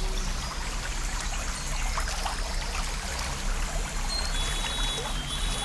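Water trickling and splashing steadily over a small stacked-stone-slab fountain, with scattered small drips and a low steady hum underneath.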